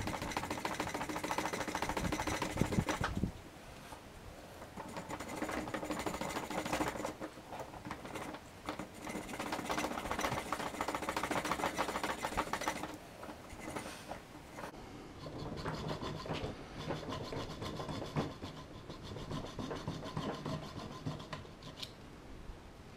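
Hobby razor saw cutting through the mounting lugs of a model locomotive body in quick back-and-forth strokes. The sawing is loudest for the first three seconds, then carries on lighter and quieter.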